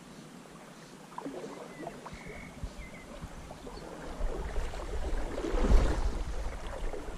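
River water sloshing and swirling around a wading angler's legs, with small scuffs and knocks as he shifts his footing on the stony riverbed. It starts faint and grows louder from about four seconds in, loudest near the end.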